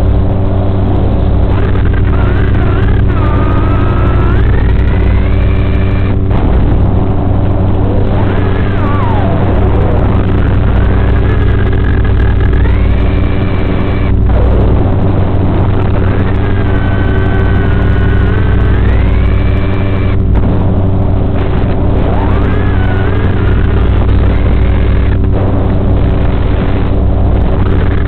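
FPV quadcopter's brushless motors whining over a steady low hum, their pitch rising and falling again and again with the throttle as the drone flips and turns.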